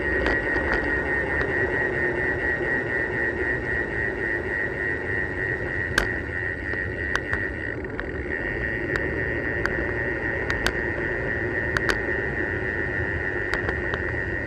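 On-board sound of a road bicycle rolling on tarmac: a steady high buzz, typical of a freewheel hub ratchet while coasting, over tyre and wind noise. Sharp clicks from bumps come every second or two, the loudest about six seconds in.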